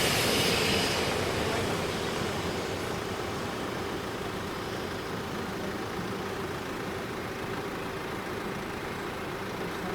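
A passing regional diesel railcar fades away over the first couple of seconds, leaving a steady background of road traffic noise.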